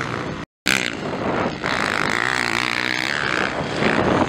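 Motocross bike engines running hard as riders race along the track, the engine pitch rising and falling with the throttle and climbing near the end. The sound drops out completely for a moment about half a second in.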